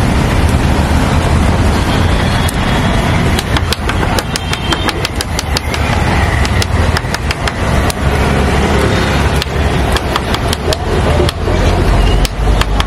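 Loud outdoor street noise: a steady low rumble with many irregular sharp clicks and crackles over it.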